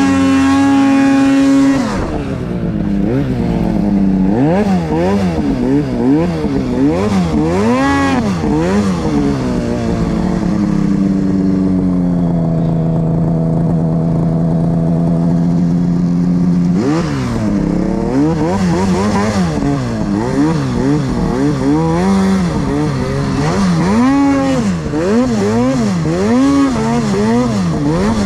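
Two-stroke snowmobile engine revving up and down over and over as the sled ploughs through deep, soft powder. It holds high revs for the first couple of seconds and settles into a steady lower pitch for a few seconds near the middle.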